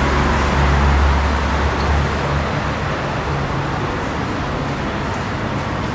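Street traffic: a motor vehicle's engine runs with a deep low rumble that fades out about two and a half seconds in, leaving a steady wash of traffic noise.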